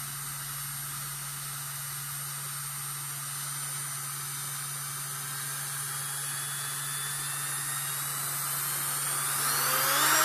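Black & Decker RTX3S variable-speed rotary tool running with no load, its motor whine rising slowly in pitch as the speed dial is turned up. Near the end the pitch climbs quickly and the tool gets louder as it is brought up toward high speed.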